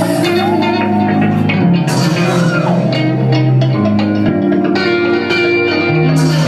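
Live rock band playing: electric guitar over held bass notes that change every second or so, with drums keeping a steady beat.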